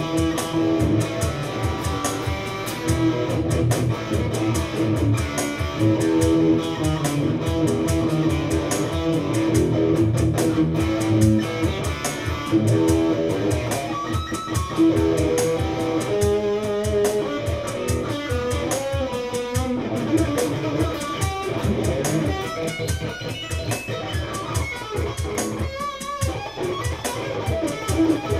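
Electric guitar played through an amplifier in a freeform jam, a quick run of picked notes over a sustained low tone. It is played on the neck pickup, with a dark but defined tone.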